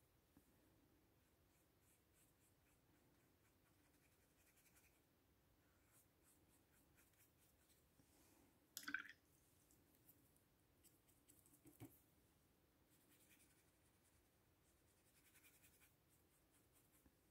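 Near silence with faint scratching of a watercolour paintbrush working on paper and palette, and a short sharp knock about nine seconds in.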